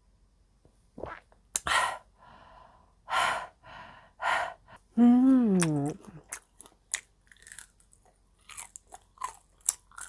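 A woman drinking a glass of somaek (soju and beer): three short breathy exhales, then a loud voiced 'aah' falling in pitch about five seconds in. After that come small chewing sounds and clicks as she eats grilled pork neck.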